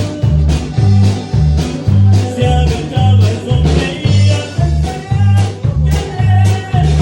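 Norteño band music: a bass note on a steady beat about twice a second under held melody notes.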